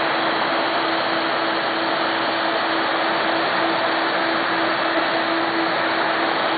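Home-built CNC machine running at 90 inches per minute: a loud, steady mechanical hum with a tone that swells and fades in an even rhythm.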